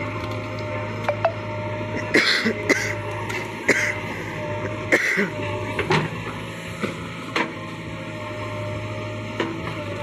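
JCB 3DX backhoe loader's diesel engine running steadily while the backhoe digs and lifts a bucket of wet mud. A series of sharp knocks and clanks from the bucket and arm comes between about two and seven seconds in.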